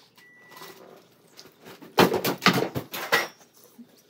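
A loud run of crunching and crackling about two seconds in, lasting just over a second: a whole dill pickle being bitten and chewed close to the microphone.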